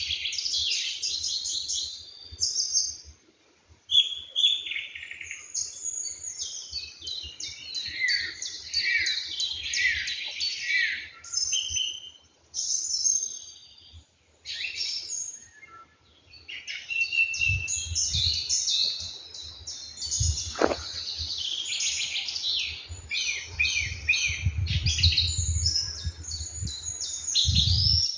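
Several songbirds singing at once in a dense dawn chorus of overlapping chirps and trills, with a couple of brief lulls. A low rumble comes and goes in the second half.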